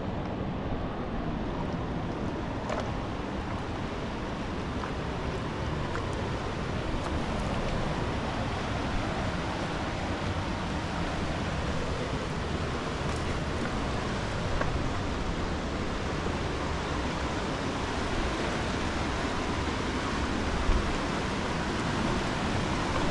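Steady rushing noise of water and wind, with wind buffeting the microphone, and a single knock near the end.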